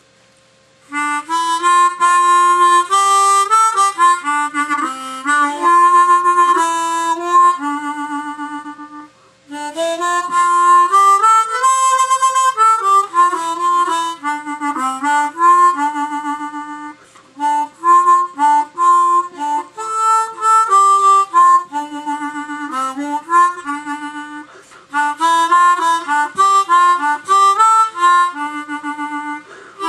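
Hohner student harmonica in C, a beginner model whose tuning differs from a blues harp, played as a loose run of notes and chords. It starts about a second in, with a short pause about eight seconds in.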